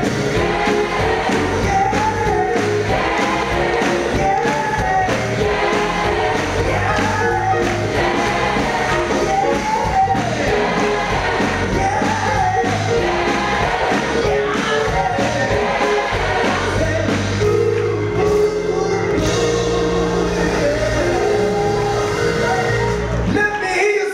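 Large gospel choir singing with a live band of grand piano, keyboard, guitar and drums, over a steady beat.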